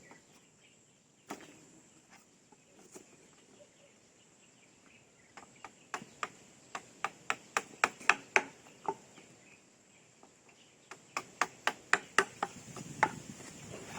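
Hammer striking wood, as when driving nails: a single knock, then a run of about a dozen quick blows at roughly three a second, and after a pause another run of about eight.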